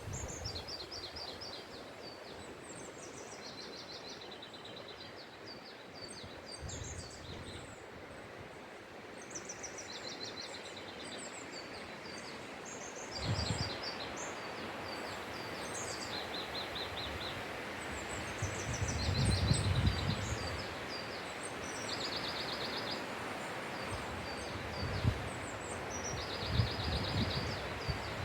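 Wind rushing steadily through a forest, with small birds singing short, high, rapidly repeated trills over and over. Wind gusts buffet the microphone with a low rumble about 13 seconds in and again around 19 to 20 seconds.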